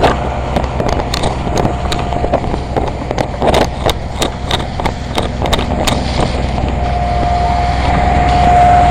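A vehicle engine runs steadily under repeated sharp knocks and rattles. From about seven seconds in, a steady whine grows louder.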